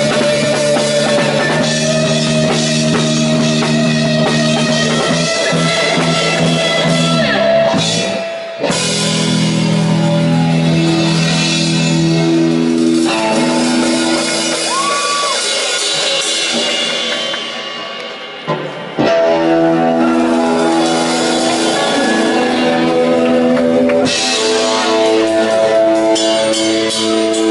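Indie rock band playing live through the venue's PA, heard from the crowd: drums, bass and electric guitar. The music breaks off briefly about eight seconds in. From about thirteen seconds the drums and bass drop out for a quieter passage, and the full band comes back in at about nineteen seconds.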